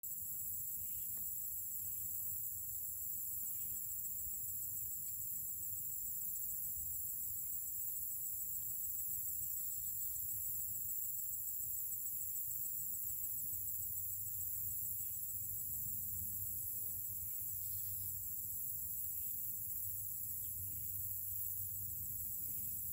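Steady, high-pitched drone of insects in summer foliage, with a low rumble underneath and a few faint short chirps scattered through.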